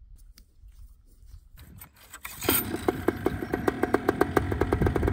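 Paramotor's two-stroke engine starting: it catches suddenly about two and a half seconds in and then runs with an even beat of about eight pulses a second.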